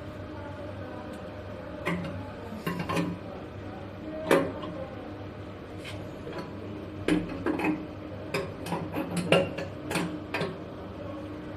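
Chrome wall mixer fittings being handled and fitted by hand: irregular metallic clicks and clinks, some in quick clusters of two or three, over a steady low hum.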